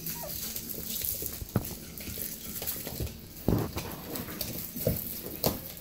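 Staffordshire Bull Terrier puppies scuffling and wrestling on a padded floor: paws scrabbling and pattering, broken by a few sharp knocks, with a brief squeak near the start.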